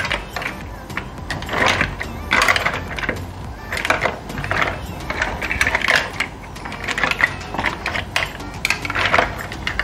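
Green-shelled mussels clattering against one another and the sauté pan as they are tossed with a spatula, in irregular bursts of hard clicks every second or so.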